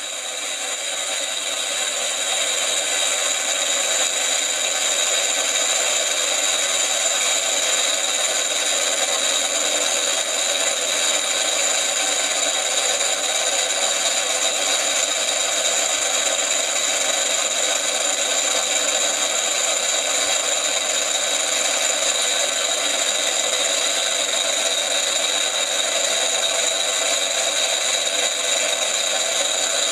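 Motorized 1/48-scale Nakajima J1N1-Sa Gekko model running: small electric motors spin the propellers while an electronic sound box plays a simulated engine sound synchronized with them. A steady mechanical drone with a high whine, swelling up over the first couple of seconds and then holding level.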